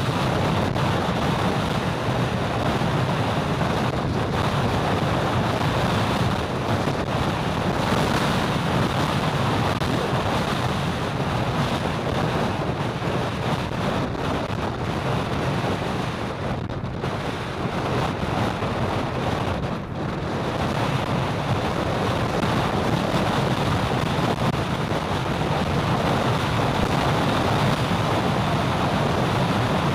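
Steady rush of wind on the microphone mixed with road noise from a vehicle moving along a highway, easing briefly a little past halfway.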